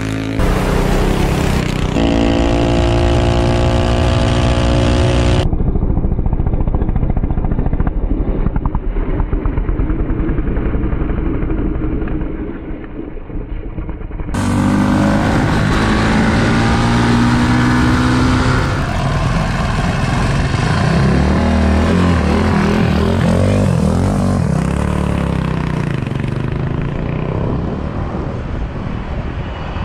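Small gas engines of minibikes and a go-kart revving hard in a run of fly-bys, the engine note climbing as each one accelerates past, with abrupt cuts from one pass to the next.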